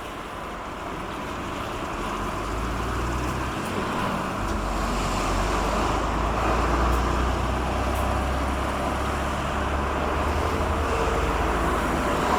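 Low engine rumble that builds over the first few seconds and then holds steady, over a haze of traffic noise.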